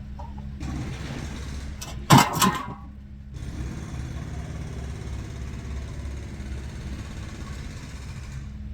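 A truck's diesel engine idling steadily, with two loud metal clanks about two seconds in as a loose piece of steel channel is worked off the truck.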